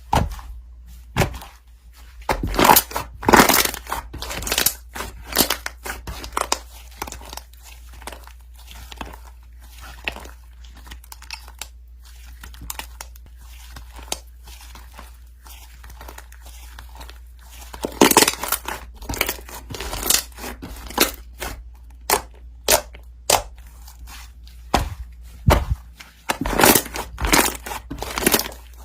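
Irregular bursts of crinkling and crunching, with the loudest clusters a few seconds in, about two-thirds of the way through, and near the end.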